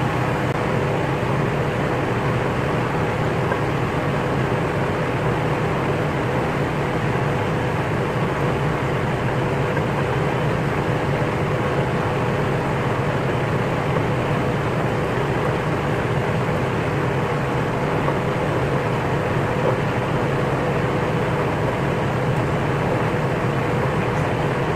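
Steady mechanical hum and hiss from a running machine, with a low drone and a fainter higher tone, holding level without change.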